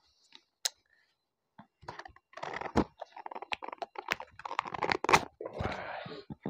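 Fingers and nails scratching, picking and tearing at a small cardboard shipping box and its tape while trying to open it: a busy run of scratches and sharp clicks that starts about two seconds in, with a short tearing stretch near the end.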